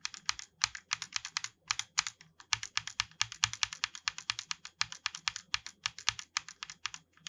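Fast typing on a mechanical keyboard with Outemu Blue optical switches modified to linear by removing their click contacts: a rapid run of crisp keystroke clacks, several a second, without the click of stock blue switches.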